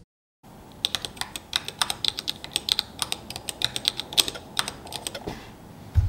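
Irregular runs of sharp plastic clicks from a small mechanical keyboard being worked by hand: its arrow keys on Gateron red linear switches and its rotary encoder knob. A low thump comes near the end.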